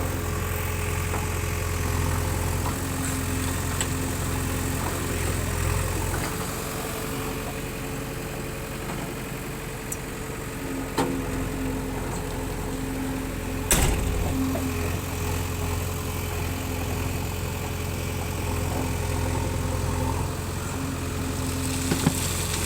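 Diesel engine of a JCB 3DX backhoe loader running steadily as it works, with one sharp knock about 14 seconds in.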